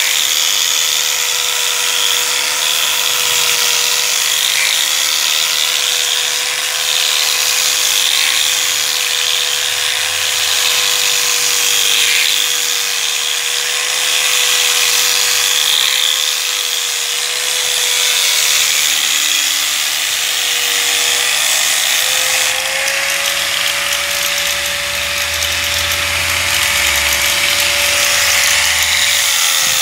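Angle grinder with a buffing pad running steadily against a rosewood board: a constant motor whine over the hiss of the pad on the wood. The whine rises a little in pitch about two-thirds of the way through.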